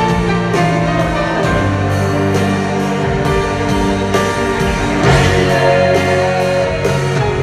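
Live rock band with a string section playing in an arena, heard from the audience: held chords over a steady drum beat.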